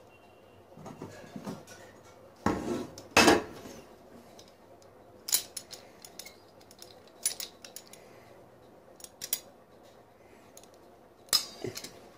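Metal hand tools, a hacksaw and a pair of locking pliers, being handled and set down on a table: scattered clinks and knocks, loudest in a short cluster about three seconds in, with single clicks every couple of seconds after.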